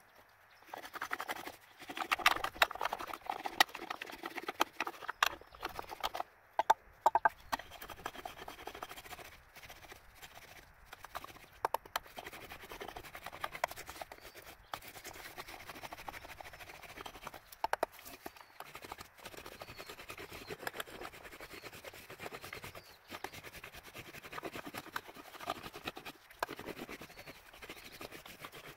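Irregular knocking and clicking, many hard taps in quick succession over a rustling noise. The taps are loudest and densest in the first several seconds, then sparser.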